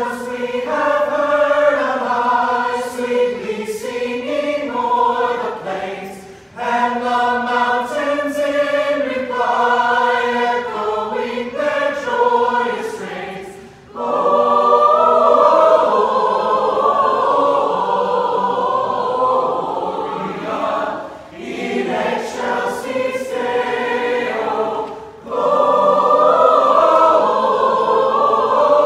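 Mixed choir of men and women singing together without instruments, in sung phrases with brief pauses between them.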